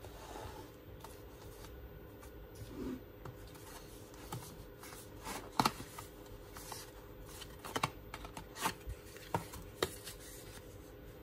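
Cardboard food tray and its paper sleeve being handled and pulled apart by hand: rustling and crinkling with a series of sharp crackles and taps, most of them in the second half.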